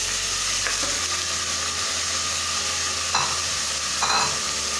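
Mutton pieces sizzling steadily in hot oil in a steel pressure cooker, just added and starting to sear. A spoon scrapes against the pot twice near the end.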